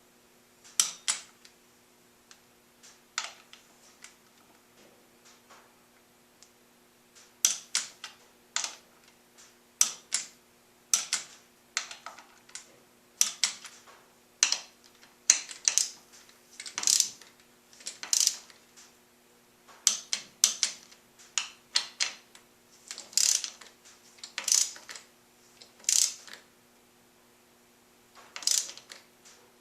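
Hand ratchet clicking in short, irregular strokes while tightening bolts, with pauses between bursts. A faint steady hum sits underneath.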